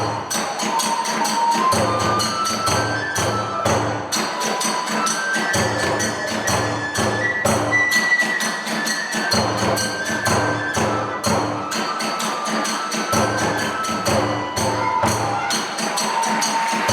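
Kagura hayashi ensemble playing: a bamboo kagura flute melody stepping up and down over steady strokes of a large drum and the sharp clashing of small hand cymbals.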